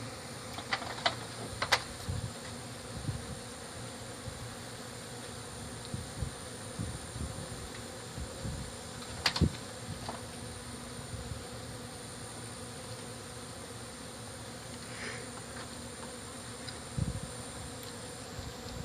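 Honeybees buzzing steadily around an opened colony in a wall, with a few sharp clicks and knocks, the loudest about two seconds in and again around nine seconds.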